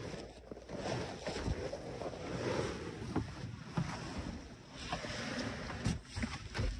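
Footsteps in snow and a plastic Pyranha whitewater kayak dragged on a rope, its hull scraping over snow and dry grass, with irregular knocks as it is handled.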